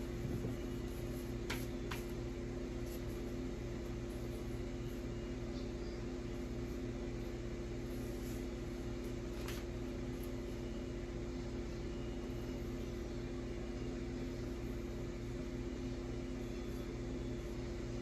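A steady low mechanical hum, with a few faint clicks about a second and a half in, two seconds in and near the middle.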